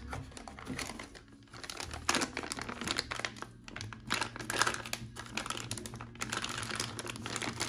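Clear plastic packaging bag crinkling and crackling irregularly as hands handle it and unwrap it.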